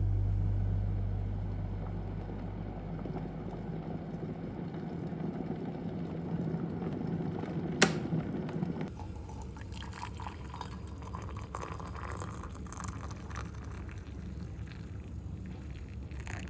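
Water pouring, with a single sharp click about eight seconds in. After that the sound turns lighter, with small irregular ticks.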